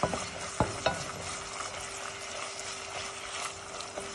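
Minced meat and sliced garlic sizzling as they fry in a non-stick pan, stirred with a wooden spoon that knocks against the pan three times in the first second.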